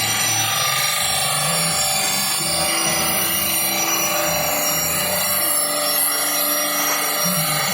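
Power tool grinding the steel blade of a grass-chopper machine to sharpen it, a steady high-pitched grind.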